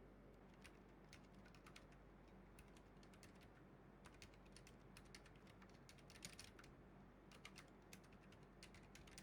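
Typing on a Keychron K3 low-profile mechanical keyboard fitted with Gconic A75 MKII keycaps: faint, irregular runs of key clicks, with the keystrokes quickening and bunching in the middle of the stretch.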